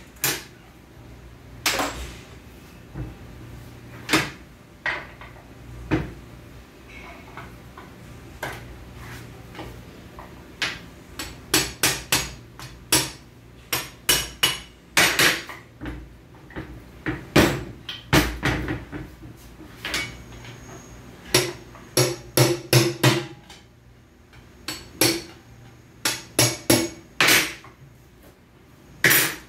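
Sharp metal taps and knocks of hand tools on an automatic transmission's oil pan, some coming in quick runs of three or four, as the pan is worked loose from its sticking gasket.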